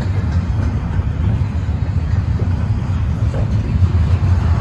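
Double-stack intermodal freight train rolling past, its well cars' steel wheels on the rails making a steady low rumble.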